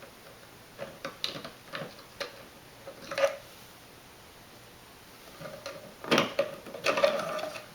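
Hands handling the plastic parts of a SLIP.7 aquarium filter: a string of light clicks and taps, then near the end a longer scraping rub with a faint squeal.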